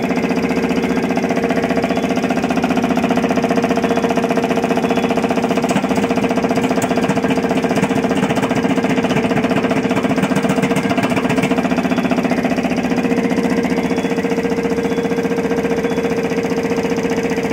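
Fan-guard wire-trimming machine running steadily: a steady hum with a fast, even mechanical pulsing. A few sharper clicks come midway as wire ends are trimmed.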